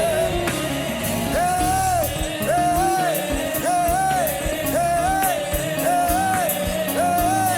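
Live gospel worship band music: drums and cymbals keep a steady beat under a short rising-and-falling melody line repeated about once a second.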